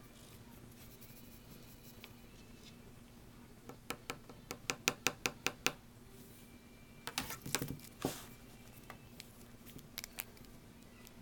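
Sharp taps and knocks on a wooden tabletop as a cat plays with a thin stick: a quick run of about five taps a second, then a denser cluster of knocks a couple of seconds later, and a few single taps near the end.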